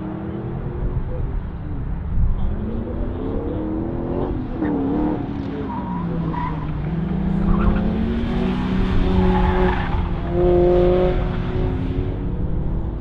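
A sports car running an autocross course, its engine revving up and falling back again and again as it accelerates and slows through the cones, with tires squealing briefly in the tighter turns.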